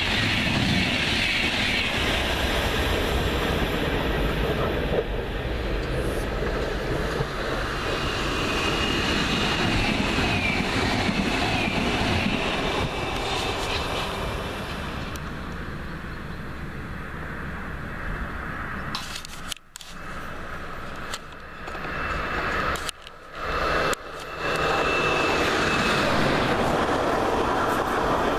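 Passenger train of Swiss EuroCity coaches running through the station at speed: a steady rush and rumble of wheels on the rails that eases after the middle. A little before 20 s the sound cuts out abruptly a few times, then loud rail noise returns near the end.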